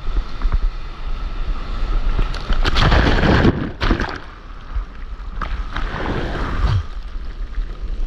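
Breaking wave and whitewater rushing over a stand-up paddleboard, with wind rumbling on the camera's microphone. The rush is loudest about three seconds in, turns muffled for about a second as the camera goes under the water, then splashing surges come back.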